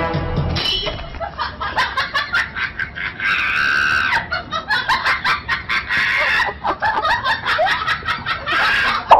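Husky-type dog vocalizing in a rapid, broken run of high yelps and whines, after a moment of music at the start. It cuts off suddenly at the end.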